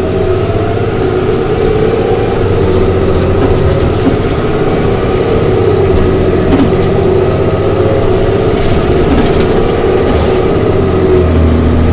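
Orion VII CNG transit bus with a Cummins Westport ISL G natural-gas engine and Allison B400R automatic transmission, running under way. It makes a loud, steady drone with a held mid-pitched tone, getting slightly louder over the first few seconds.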